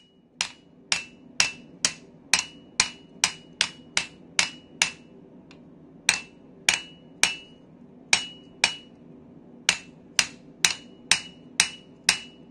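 Blacksmith's hammer striking iron on an anvil: sharp ringing blows about two a second, in runs broken by short pauses, over a faint steady low hum.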